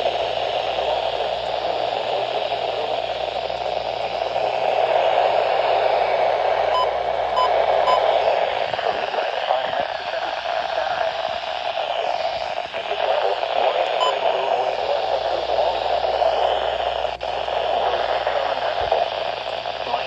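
Midland weather radio's speaker hissing with heavy static from a weak NOAA Weather Radio signal, any broadcast voice buried in it. Three faint short beeps about seven seconds in.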